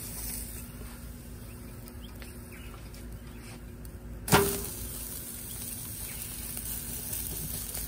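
Ribeye steaks sizzling on the hot searing burner of a propane grill, with a faint steady hum underneath. A single sharp metallic clank, the loudest sound, rings briefly about four seconds in.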